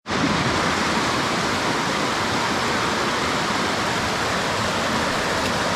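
Fast river water rushing steadily past the bank.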